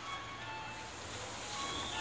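Short high-pitched tones at shifting pitches, sounding one after another, over the low steady hum of a stopped electric train standing at a station platform.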